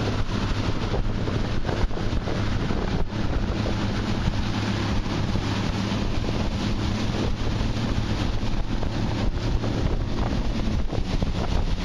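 Small outboard motor on a Gheenoe skiff running steadily at speed, a constant low hum under the rush of water along the hull, with wind buffeting the microphone.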